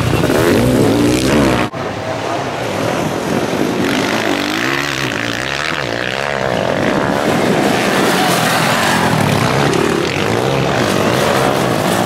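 Sidecar motocross outfits' engines revving, their pitch rising and falling as they race. The sound breaks off for an instant about two seconds in, then carries on.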